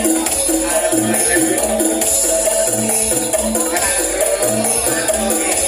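Loud DJ remix dance music with a steady, repeating beat and a continuous shaker-like rattle over it.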